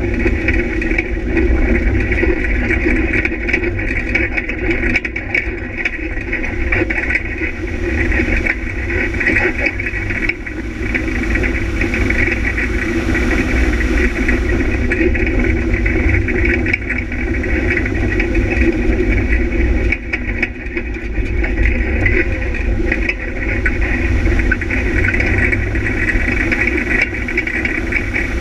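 Onboard engine noise of a vehicle driving steadily along a dirt and gravel track, the engine holding an even speed over a steady low rumble.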